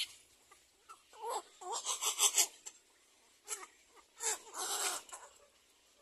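Black-crowned night heron chicks in the nest giving harsh, rapid begging calls in two bouts, the first about a second in and the second around four seconds in, with a short call between them.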